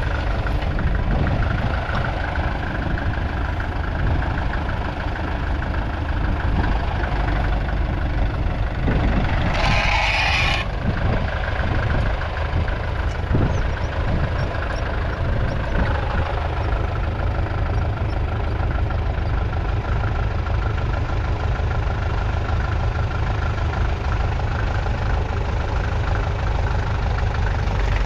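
1958 Massey Ferguson 65 MK1's 3.3-litre four-cylinder diesel engine running steadily with a low, even chug. A brief hissing burst of noise comes about ten seconds in.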